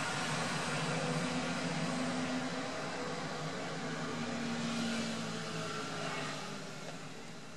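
Steady background mechanical noise: a hiss with a low hum whose pitch shifts a little, easing off slightly near the end.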